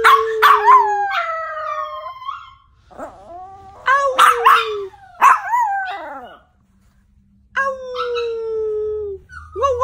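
Yorkshire terrier howling in three long drawn-out howls, each opening with sharp yips. The howl turns wavering, rising and falling, near the end.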